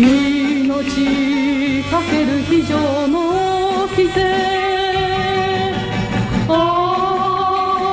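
A song with a singer holding long, wavering notes over accompaniment. The voice slides to a new, higher note a little after six seconds in.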